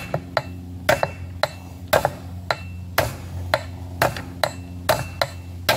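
Hammer blows on a bearing driver, pressing a new wheel bearing into an ATV's front wheel hub on its outer race: sharp metal knocks, about two a second. The pitch of the hits goes from hollow to deep when the bearing bottoms out in the hub.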